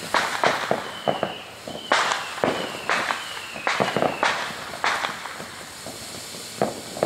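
Fireworks going off: a rapid series of sharp pops and bangs, several followed by a short falling whistle, with quicker crackling near the end.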